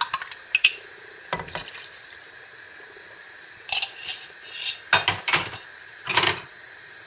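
Kitchenware clinking and knocking: a handful of separate knocks and clinks of glass and utensils being handled, the loudest near the end, with a quiet pause in the middle.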